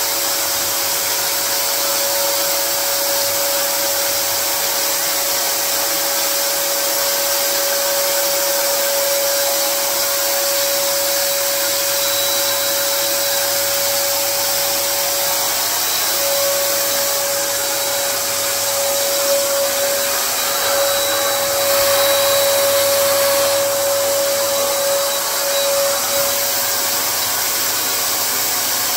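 Electric paint spray gun running steadily as it sprays paint onto a wall: a constant rush of air with a steady whine.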